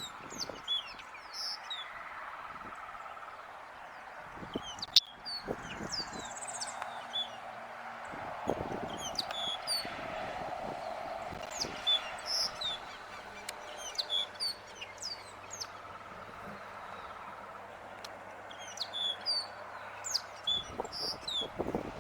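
Greyish baywings calling: a busy run of short, high chirps and quick sweeping notes, over a steady background noise. A single sharp click about five seconds in.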